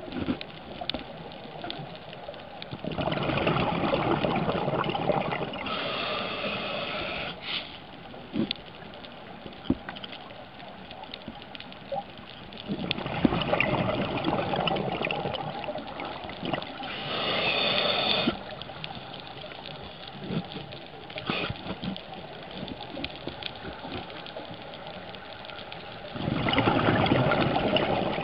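Scuba diver breathing underwater through a regulator: three long rushes of exhaled bubbles about ten seconds apart, with faint clicks and crackles between breaths.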